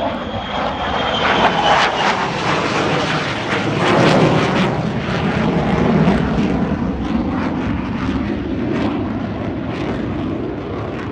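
F-35 fighter jet's engine during a display pass: loud rushing jet noise with a ragged crackle, loudest about four to six seconds in and then slowly easing off.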